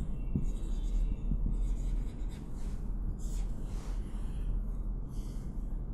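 Marker pen writing on a whiteboard: short scratchy strokes as a word is written out, over a steady low hum.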